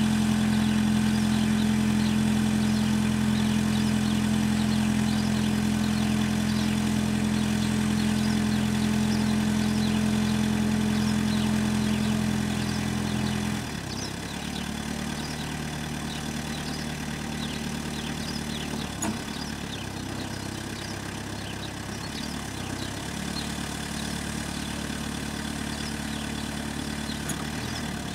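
Hyster H2.50XL diesel forklift engine running steadily at raised revs, then dropping suddenly to a lower, quieter speed about halfway through and running on there.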